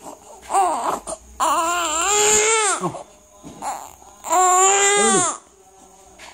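A 16-day-old newborn baby crying in wails: a short cry, then a long wail of about a second and a half, a brief cry, and another long wail, with breaths in between.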